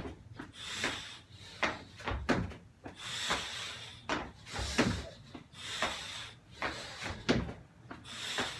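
Burpees on a rubber gym floor: a run of repeated thuds as hands, feet and body drop onto the mat and land from jumps, several each second or so.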